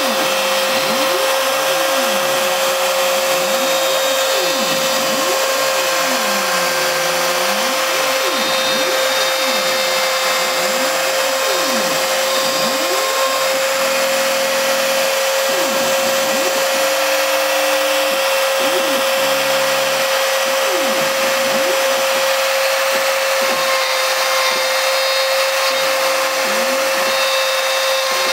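CNC router carving a letter into a wooden board: the rotary-tool spindle runs with a steady whine while the cutter moves along the letter's curves. Beneath it, lower tones sweep up and down in pitch as the machine's axis motors speed up and slow down.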